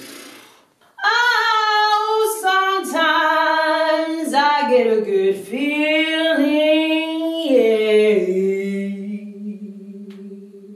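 A woman singing a cappella with no instruments. The voice comes in about a second in, slides through a run of notes, then settles on a long held low note that fades away near the end.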